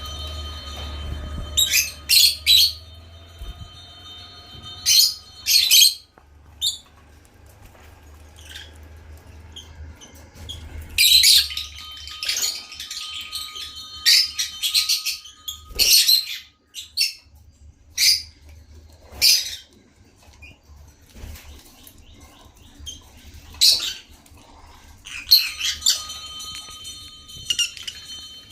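African lovebirds giving short, high-pitched chirps and squawks in irregular clusters, several in quick succession each time.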